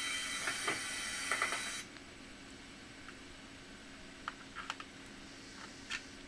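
A steady hiss that cuts off suddenly about two seconds in, followed by a few scattered light clicks and taps.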